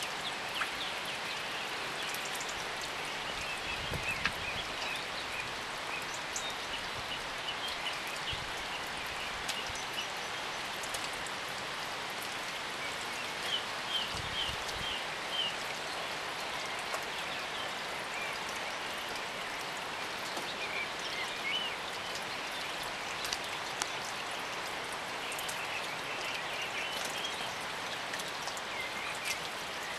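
Steady rain falling, a continuous even hiss with scattered drips, and short bird chirps now and then.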